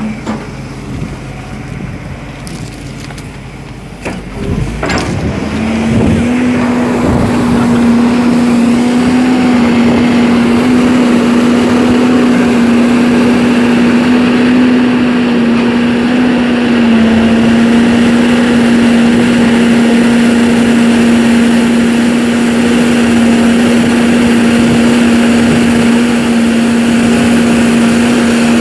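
Heavy excavator's diesel engine throttling up about five seconds in from a quieter run with a few knocks, then held at a loud, steady high throttle with a strong hum, working hard while the machine is stuck in a ditch.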